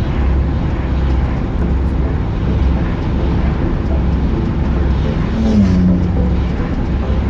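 Steady low road and engine rumble of a car driving in traffic, heard from inside the car. About five and a half seconds in, a brief pitched tone drops slightly.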